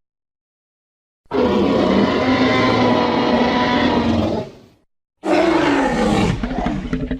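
Two Tyrannosaurus rex roar sound effects, one after the other with a short gap. The first is a long, loud roar of about three and a half seconds. The second is shorter, and its pitch falls as it dies away.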